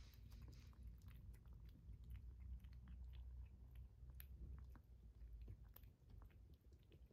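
Kitten chewing dry kibble: faint, scattered small crunches and clicks.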